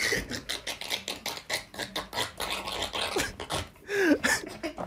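A person moving restlessly in an upholstered armchair: a run of irregular rustles, scratches and taps, with a short voice-like sound about four seconds in.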